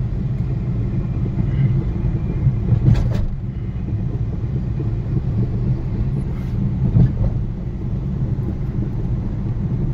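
Steady low rumble of a moving car's engine and tyres on the road, heard from inside the cabin, with a brief knock about three seconds in.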